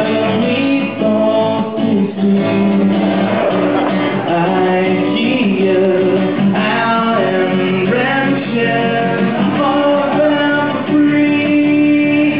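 Live music: a guitar strummed with singing.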